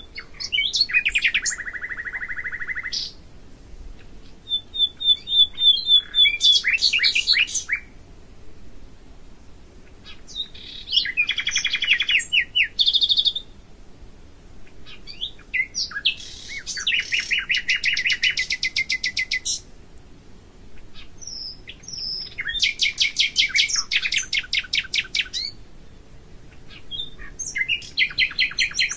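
A songbird singing about six loud phrases of rapid trills and whistled notes, each a few seconds long, separated by short pauses.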